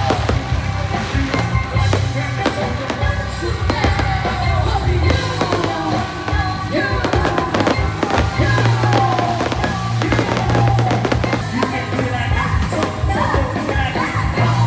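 New Year's fireworks going off in quick succession, bursting and crackling, over loud music with a steady beat.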